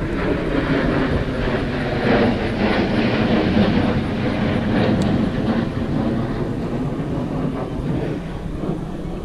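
Baitcasting reel cranked through a steady retrieve, over a continuous low rumble.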